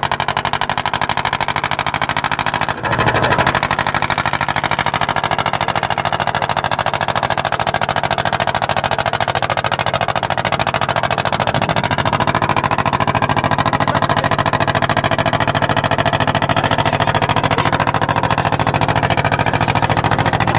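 A boat's engine running steadily with a fast, even chugging. There is a brief dropout about three seconds in.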